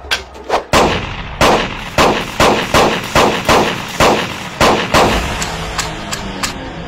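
Action-film gunfire sound effects: a rapid run of about a dozen sharp shots, two or three a second, that stops about five seconds in, leaving a fainter stretch.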